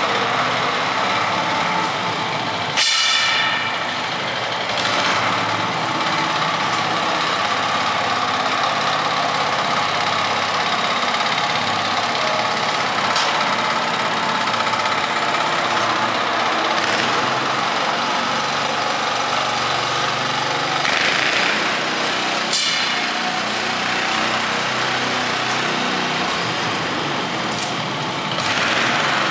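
Steady mechanical running noise like an engine. A sharp, ringing metallic clank comes about three seconds in, and a few lighter knocks follow later.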